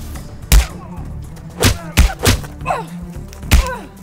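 Film fight-scene punch and kick impact effects: about five sharp, heavy hits, three of them close together in the middle, over background music.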